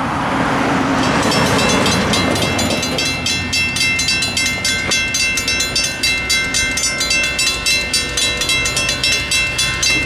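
A bell ringing steadily, about two strikes a second, starting about a second and a half in, as an Amtrak passenger train approaches with a low rumble beneath.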